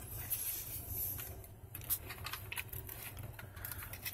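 Small scattered clicks and light metallic rattles of steering-column parts being worked loose and pulled out by hand, over a steady low hum.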